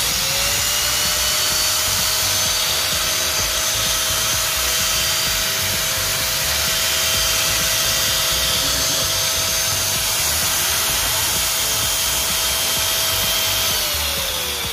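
Powerbilt 1100 W angle grinder running free with two blades mounted on a double-blade adapter, not cutting anything. Its steady whine spins up at switch-on, holds level, then falls in pitch as it winds down near the end.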